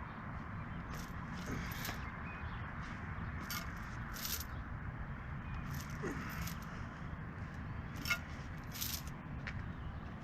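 Steady low rumble of travel over a road, with short, light metallic jingles and rattles every second or so.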